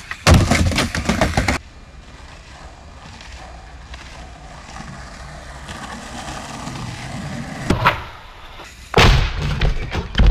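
Skateboard landing with a loud clatter, then wheels rolling with a steady rumble over a wooden platform deck. A single sharp clack near eight seconds in, and about nine seconds in a loud crash of board and rider hitting the wooden planks in a bail.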